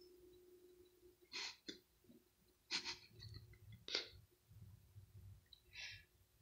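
Near silence in a small room: a faint steady hum, with a few short, separate breathy puffs.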